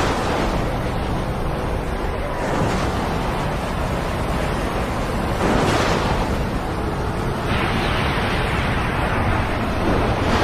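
Race trucks running at speed, a steady rush of engine and wind noise with a whoosh as a truck goes by about every three seconds.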